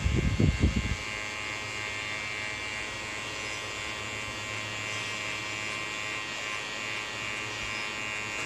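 Electric hair clipper buzzing steadily as it is run over a scalp cropped to stubble, a steady hum with a high whine in it. There is a muffled low rumble in the first second.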